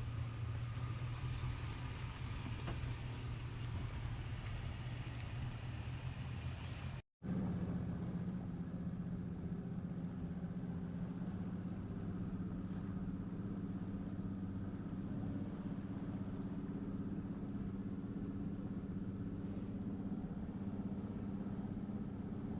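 An engine running steadily with a low hum, cut off abruptly about seven seconds in and resuming at a somewhat higher pitch.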